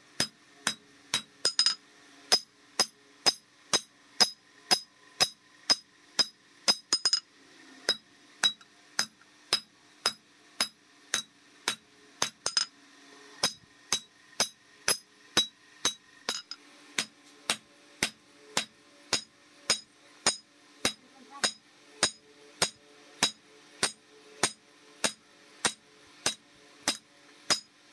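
Hammer blows on a red-hot steel knife blank lying on an anvil, struck at a steady rhythm of about two blows a second. Each blow rings sharply, and a short flurry of quicker blows comes about seven seconds in.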